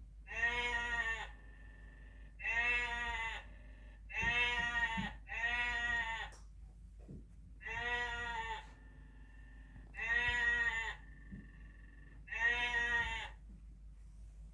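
Recorded bleating of a sheep or goat-like farm animal played back over a TV speaker: about seven calls of roughly a second each, repeating every couple of seconds, two of them close together about four to five seconds in.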